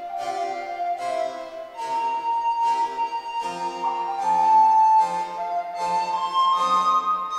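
Wooden recorder playing a slow melody in long held notes that climb higher toward the end, over a keyboard accompaniment of regularly struck chords.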